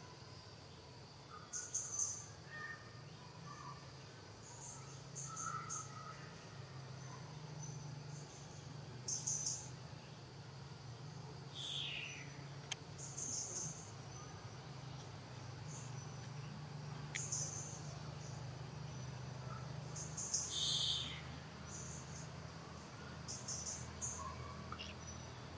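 Insects chirping in short high-pitched bursts every second or two over a steady low hum, with two brief falling chirps partway through.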